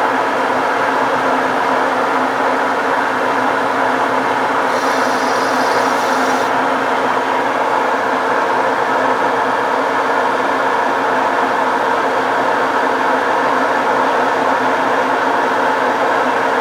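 Metal lathe running steadily, its motor and gearing giving a constant hum. There is a brief high hiss about five seconds in.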